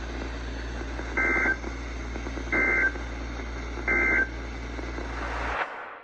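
Emergency Alert System end-of-message signal: three short bursts of screeching digital data tones, about a second and a half apart, over steady radio hiss and hum. They close the flash flood warning. The audio cuts off near the end.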